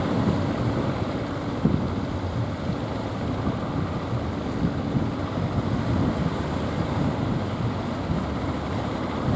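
Strong wind buffeting the microphone over breaking surf, with a fishing boat's engine running steadily underneath.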